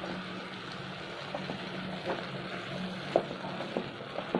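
Mixed vegetables sautéing in a steel pressure-cooker pot: a soft steady sizzle with a low hum under it. A spoon clacks against the pot a few times in the second half as the vegetables are stirred.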